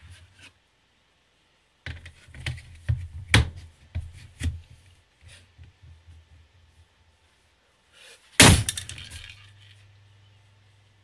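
A Skallywag Tactical dagger stabbed hard into a plastic pistol holster: one loud, sharp crack about eight seconds in, trailing off over a second or so. Before it, a few seconds of scattered knocks and clatters from handling the holster and blade.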